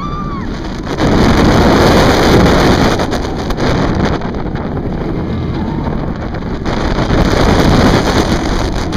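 Roller coaster in motion: rushing wind buffeting the microphone over the rumble of the train on its steel track, growing louder about a second in.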